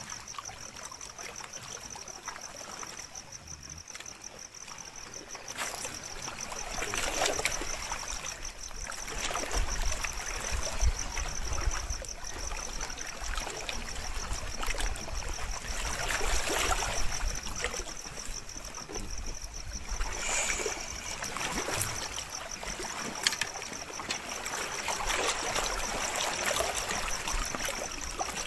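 Lake water lapping and trickling at the shore, swelling and easing in irregular surges every few seconds. A steady, fast, high-pitched pulsing chirp sits over it.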